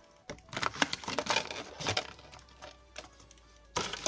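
Handling noise as a lavalier microphone is pulled from its just-opened plastic packaging: a quick run of crackles and clicks for about two seconds, then scattered ones, with a louder rustle near the end.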